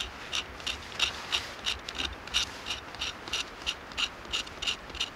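Rasping strokes of a hand tool working wood, about three a second in an even rhythm.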